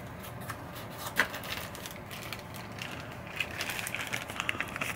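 Cardboard box being opened by hand and a small plastic bag of parts handled, making scattered clicks and crackles. The crackling gets denser near the end as the plastic bag of yellow rubber flipper rings is crinkled.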